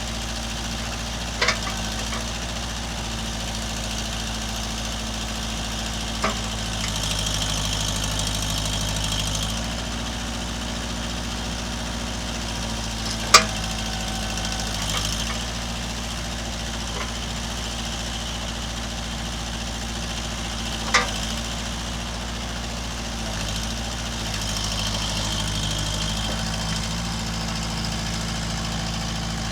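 Kubota L45 loader backhoe's diesel engine running steadily. Its note changes twice for a few seconds with a higher hiss over it, and there are four short sharp clunks spread through.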